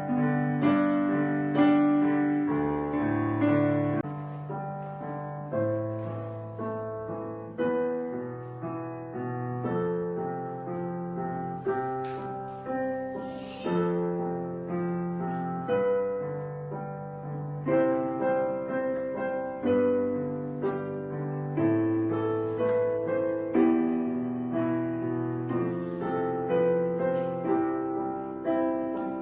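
Slow solo piano music: single melody notes and chords struck about once or twice a second over sustained low notes, each note fading after it is played.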